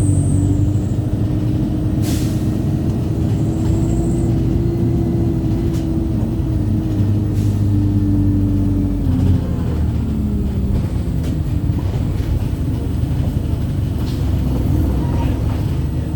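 Wright StreetLite single-deck bus under way: engine and drivetrain running with a steady whine that drops in pitch about nine to ten seconds in. A short air hiss comes about two seconds in, typical of the bus's air system.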